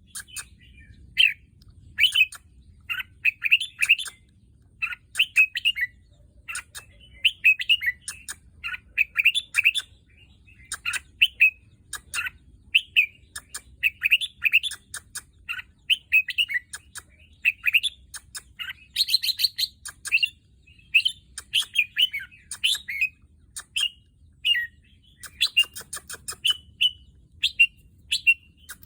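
A caged red-whiskered bulbul singing: short, bright whistled phrases repeated every second or so, in a steady run of song.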